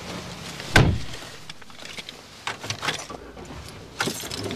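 A sharp knock about a second in, then a scatter of small clicks and rattles, and another knock near the end.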